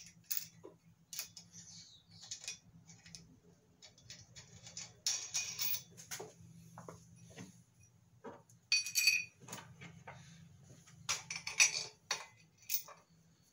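Small metallic clicks and clinks of a bolt, washer and nut being handled and threaded onto a steel engine-stand mounting plate, with louder clusters of clinks about five, nine and twelve seconds in, over a low steady hum.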